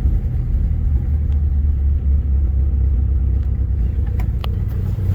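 A 1997 Eagle Talon's 420A 2.0-litre non-turbo four-cylinder engine idling with a steady low rumble. The owner says it misfires at idle, at around 1,000 rpm.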